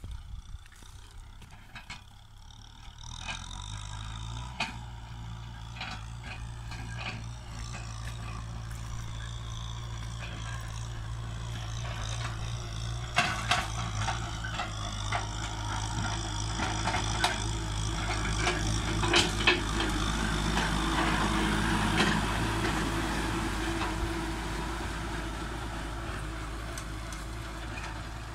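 Diesel tractor engine running steadily under load while pulling a disc plough through dry, cloddy ground. It becomes audible a few seconds in and grows louder as the tractor comes closer, easing off slightly near the end, with scattered sharp knocks and clatter from the plough and soil.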